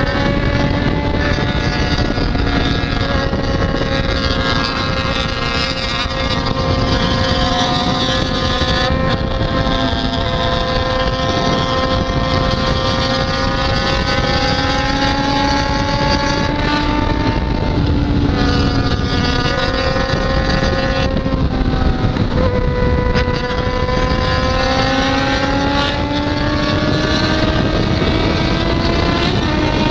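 Yamaha XJ6's inline-four engine running hard at speed through an open, de-baffled exhaust, its pitch climbing steadily as the bike accelerates and dipping briefly a few times before rising again, with wind rushing past.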